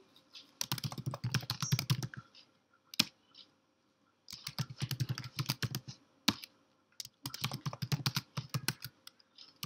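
Typing on a computer keyboard: quick runs of key clicks broken by short pauses, the longest a pause of about two seconds after the first run.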